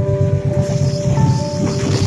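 Background piano music with held notes, over the low rumble of a diesel locomotive approaching along the track, with a hiss that builds about halfway through.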